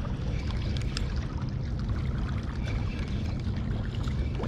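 Sea water sloshing and lapping against breakwater rocks, over a steady low rumble of wind on the microphone.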